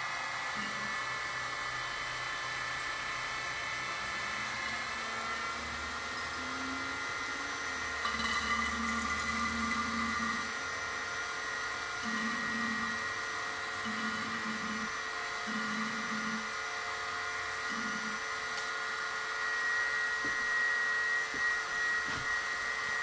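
Electric hydraulic pump of an RC hydraulic Kobelco SK500 LC excavator running with a steady high whine while it pushes hydraulic oil out through a drain hose. A lower hum comes in five or six times, a second or so each, from about a third of the way in.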